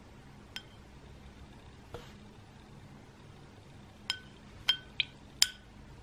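Metal spoon clinking against a plate as it cuts through a custard pudding: two light taps, then four sharper clinks in quick succession near the end, each with a short ring.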